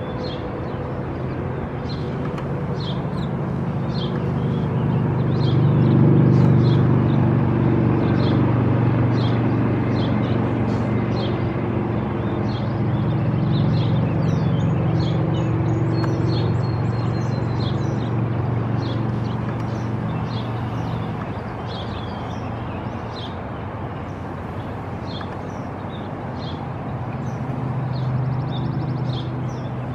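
A low engine drone that swells over a few seconds, holds, then fades gradually. Over it a small bird chirps repeatedly, about once a second.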